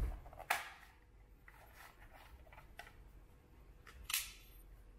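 Sharp plastic clicks and handling knocks as the battery cover is worked off a small plastic 1989 Coca-Cola vending-machine AM/FM radio. There is one loud click about half a second in, a few lighter clicks after it, and another sharp click about four seconds in as the cover is set down on a tile floor.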